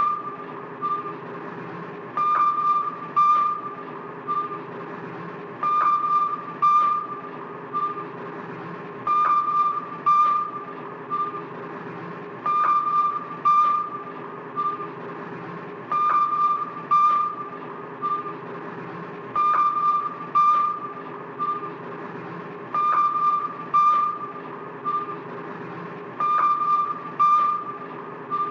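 1960s sci-fi style submarine interior ambience: a steady low machinery hum under a repeating group of three or four short, high electronic bleeps, the first the loudest, recurring about every three and a half seconds.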